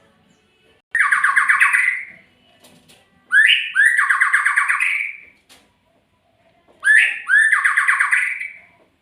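Murai songbird singing three loud phrases, each a rapid trill of quickly repeated notes. The second and third phrases open with two fast rising whistles.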